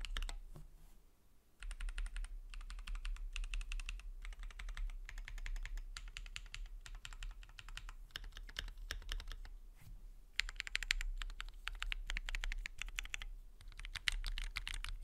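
Typing on a Keychron Q3 Pro SE mechanical keyboard with ABS keycaps and a metal case: fast runs of key clicks in bursts, with a short pause about a second in.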